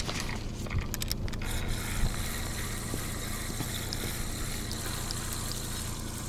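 Spinning reel on a feeder rod being cranked by hand to retrieve line, with a few clicks at first and then a faint, evenly spaced ticking, over a steady low rumble.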